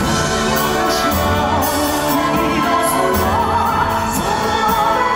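Live song performance: a singing voice holding wavering, vibrato-laden notes over steady instrumental accompaniment.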